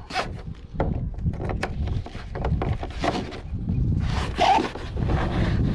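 Kayak seat straps and plastic clasps being handled and fastened, with irregular rubbing and scraping against the kayak and a few sharp clicks.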